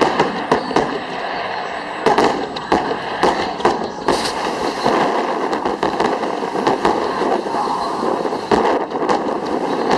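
Aerial fireworks shells bursting: a rapid string of sharp bangs over the first few seconds, then from about four seconds in a dense, continuous crackle and hiss with scattered louder bangs.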